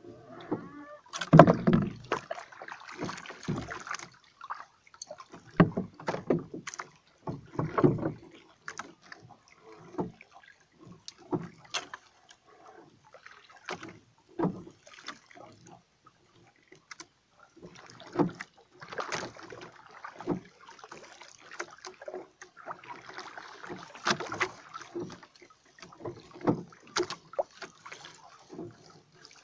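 Water slapping and sloshing against the hull of a small wooden outrigger boat, with irregular knocks and thumps from the boat and the person moving in it; the loudest thump comes about a second and a half in.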